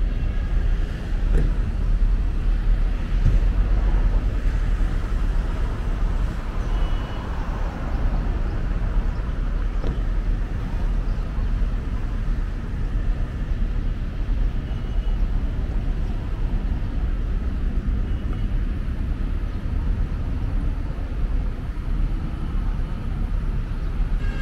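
Outdoor urban ambience: the steady rumble of road traffic, with a few brief high tones scattered through it.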